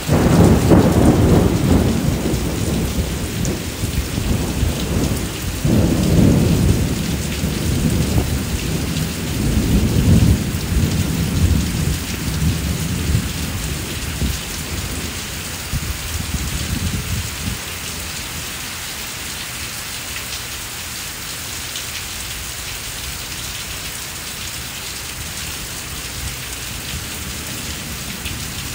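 Heavy rain falling steadily on a brick patio and plants, with a long roll of thunder that starts at once, swells again about six and ten seconds in, and fades out after about seventeen seconds, leaving only the rain.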